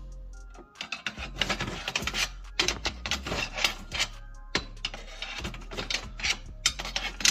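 Hand tools working on exhaust metal: irregular scraping and clicking strokes, over a steady low hum.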